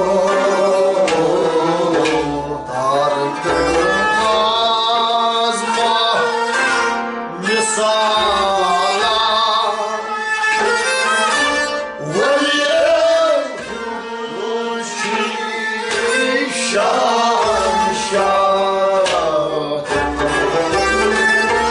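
Live small-ensemble music: a man singing to harmonium, with a bowed sarangi and a plucked lute playing along.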